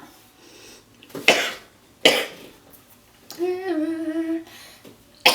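A woman coughing from a hit of cannabis smoke: two harsh coughs about a second apart, a held vocal groan about halfway through, and another cough at the very end.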